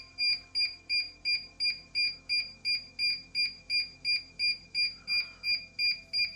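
Rapid, evenly spaced electronic beeps, about three a second, from a DJI drone and its remote in linking mode while they pair. The beeping stops just at the end.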